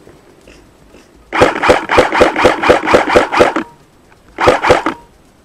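Airsoft rifle fired close to the camera: a quick, even string of shots lasting a little over two seconds, then a short burst of about three more shots near the end.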